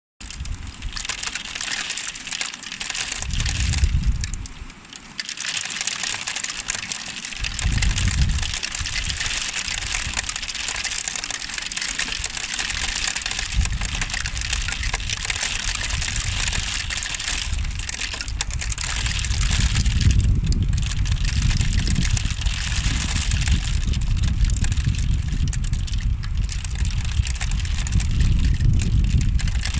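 Rain falling as a steady hiss, with low rumbling gusts of wind on the microphone that come and go early on and run almost continuously from about halfway.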